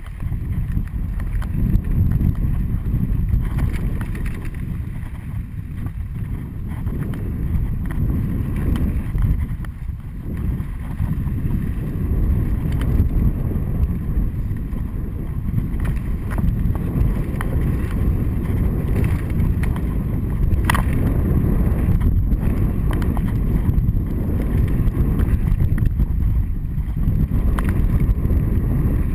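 Wind buffeting the microphone of an action camera on a mountain bike riding fast down a dry dirt trail, with a steady low rumble of tyres and rattling of the bike over the ground. A sharp knock about two-thirds of the way through.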